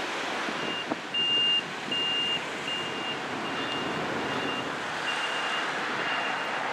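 A construction vehicle's reversing alarm beeps at one high pitch, repeating about every second, over a steady rushing background.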